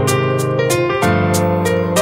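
Background music: held chords over a steady beat of about three strikes a second.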